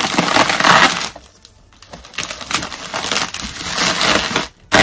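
Loud crinkling and crunching of packing material as a shipping box is unpacked by hand, in two long stretches with a short pause about a second in.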